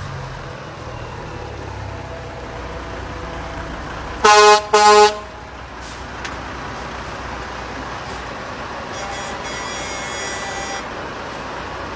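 Two short blasts of a semi truck's air horn about four seconds in, loud over the steady running of tractor-trailers rolling past.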